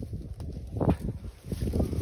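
Wind blowing across the microphone: an uneven low rumble with gusty peaks, the strongest about a second in.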